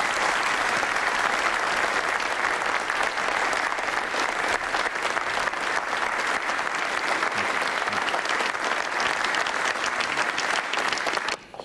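Audience applauding steadily, a dense patter of many hands clapping that stops abruptly near the end.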